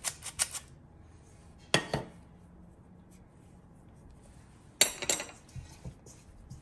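A squeeze-handle flour sifter clicking rapidly for about half a second. Then come sharp metal clinks against a stainless steel mixing bowl: one about two seconds in and a short rattle about five seconds in.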